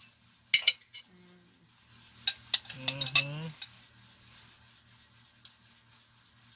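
Spoons clinking against dishes while eating: a few sharp clinks about half a second in, a cluster between two and three and a half seconds, and one more near the end. A short voiced "mm" comes around a second in and again around three seconds.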